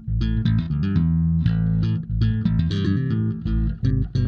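Bass guitar music: a riff of quickly plucked notes with a strong low end.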